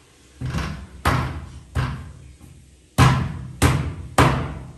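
A toddler banging on a closed wooden door with his hands: six loud bangs in two groups of three.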